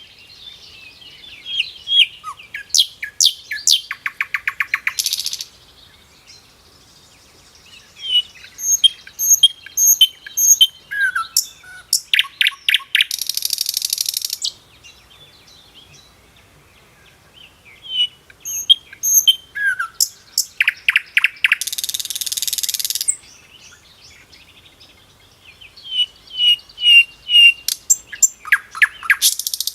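A songbird singing the same song four times, a few seconds apart: a run of sharp high chirps and notes that ends in a fast, buzzy trill.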